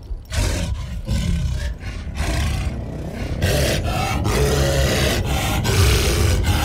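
Troll creature sound effect: a rough, growling roar in several breaking bursts, louder and more sustained from about three and a half seconds in.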